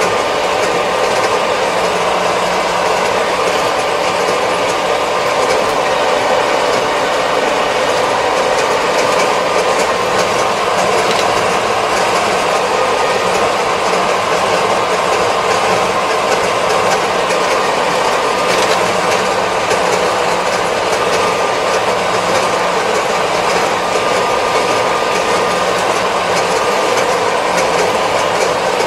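Kubota 75-horsepower tractor driving along a road at steady speed, heard from inside its cab. The diesel engine and drivetrain make a steady hum with a rattle over it.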